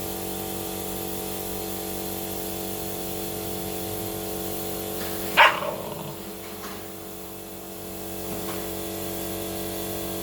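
A dog barks once, a single short loud bark about halfway, with two faint short sounds after it, over a steady machine-like hum.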